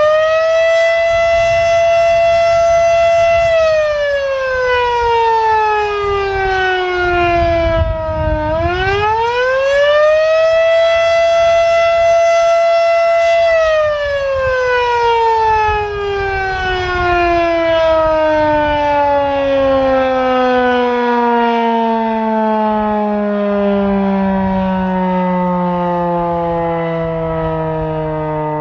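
Federal Sign & Signal Type 7 three-phase rotating outdoor warning siren sounding the attack signal. It holds a high steady tone for a few seconds, falls, winds back up, and holds again. About halfway through it begins a long, slow wind-down, its pitch sinking steadily to a low moan.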